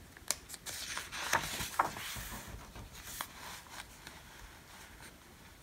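A paper page of a picture book being turned: a few sharp crackles and a soft rustle as the page flips over, dying away after about three seconds.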